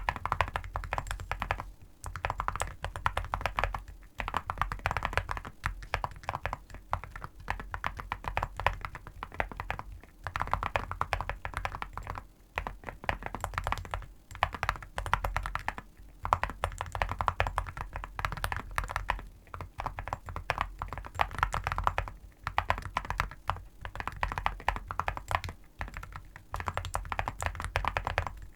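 A mechanical keyboard fitted with Awekeys Viking Antiques full-metal keycaps, typed on quickly. Dense runs of key clicks come in bursts, with brief pauses every couple of seconds.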